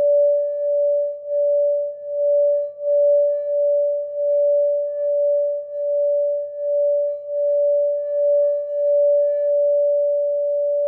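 A sacral chakra singing bowl sounding one sustained, steady tone. It pulses with an even wah-wah swell about every 0.7 seconds, and the swell smooths out near the end.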